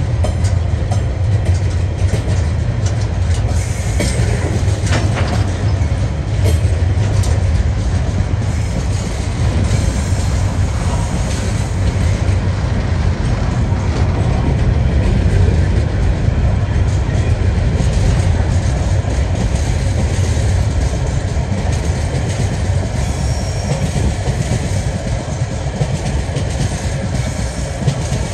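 A TasRail freight train rolling past: a steady, loud, low rumble of wheels on the rails, with a few sharp clicks about four to six seconds in.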